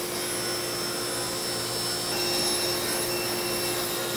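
SawStop table saw running and ripping through a laminated MDF blank, trimming it to final width. A steady machine noise with a constant hum, getting a little louder about two seconds in.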